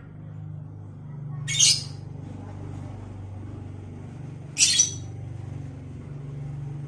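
Lovebird giving two short, shrill squawks about three seconds apart, over a steady low hum.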